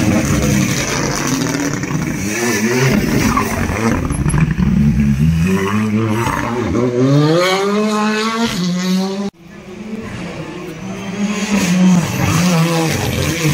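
Rally car engines passing at speed, revving hard with the pitch climbing and falling through the gears. The sound breaks off abruptly about nine seconds in, then another car's engine builds up and revs past.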